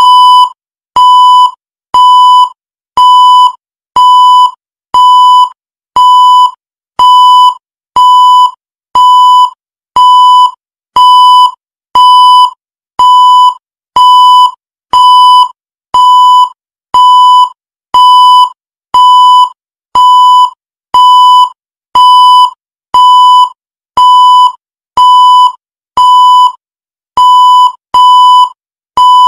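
Electronic countdown-timer beep: one short, high beep every second, evenly spaced and all at the same pitch, each beep marking a second counted off.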